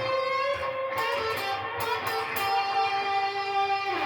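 Electric guitar playing a single-note lick: a few quick notes, then one note held for over a second near the end. An E flat in it is a wrong note, played by mistake.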